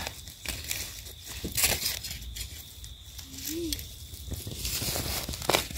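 Dry leaf litter and twigs crackling and rustling as they are disturbed while gathering termite mushrooms, in many small irregular crackles.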